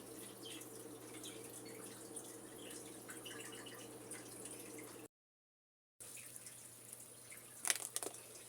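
Faint bubbling of water simmering in a crock pot over a steady low hum. The sound drops out for about a second past the middle, and a few light clicks come near the end.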